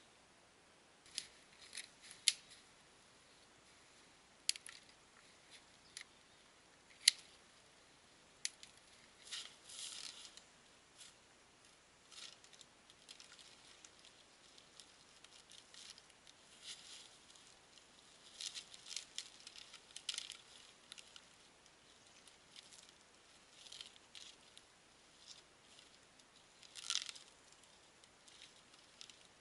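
Birch bark being peeled off a tree trunk by hand: bursts of papery tearing and crackling, with several sharp snaps in the first eight seconds or so.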